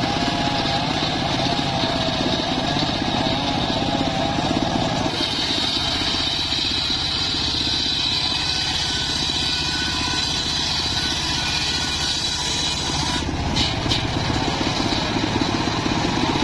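Homemade engine-driven circular saw bench ripping a timber beam into planks, with the engine running steadily under the cutting. A wavering mid-pitched tone gives way about five seconds in to a high steady whine, and a short clatter of sharp knocks comes about thirteen seconds in.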